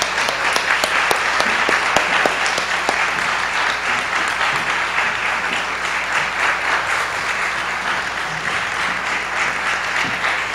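Audience applauding steadily: many hands clapping in a hall.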